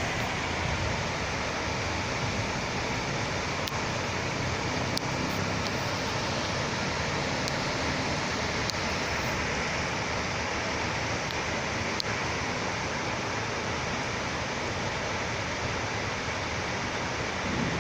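Steady rainfall, an even hiss with a few faint sharp ticks of drops.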